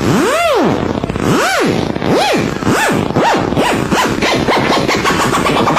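Electronic sound effect: a tone that swoops up and back down over and over, each swoop shorter and faster, speeding up into a rapid warble.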